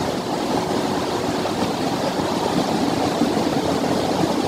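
Mountain creek rushing, a steady, even sound of flowing water.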